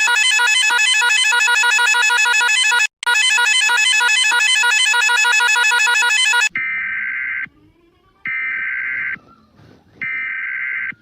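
A fictional emergency alert alarm: a loud, fast-repeating synthesized electronic tone pattern, broken once briefly, stops about six and a half seconds in. Three buzzy data bursts of about a second each follow, a second apart: the digital SAME header tones that open an EAS alert.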